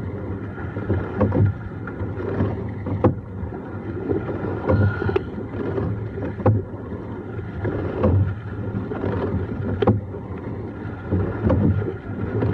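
Rowing eight under way, heard from inside the boat: sharp clacks of the oars in their oarlocks come once every stroke, roughly every one and a half to two seconds. Between them runs a steady rush of water along the hull, with some wind on the microphone.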